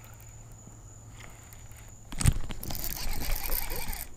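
A faint steady low hum that stops with a sharp knock about halfway through. Splashing water and rustling gear follow close by.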